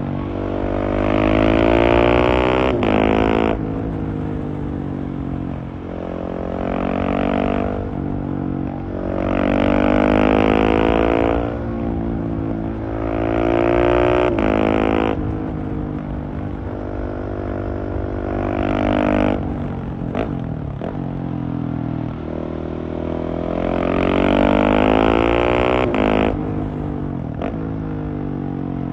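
Husqvarna 701's single-cylinder engine through a LeoVince Nero exhaust, heard on board while riding. It pulls hard about six times, the pitch climbing through each gear and dropping sharply at each quickshifter upshift, with easing-off lulls between the pulls.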